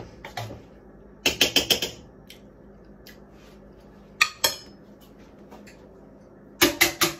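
Pots, pans and utensils clattering on the stovetop: three short runs of quick knocks, about a second in, around four seconds in, and near the end.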